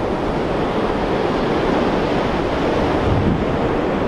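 Ocean surf breaking and washing on a flat sandy beach, a steady rushing noise, with wind buffeting the microphone.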